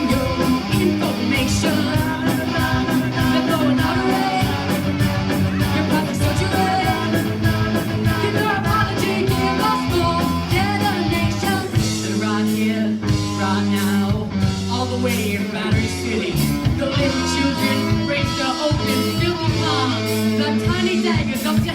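A rock band playing live, with electric guitar, bass, drums and singing over a steady beat.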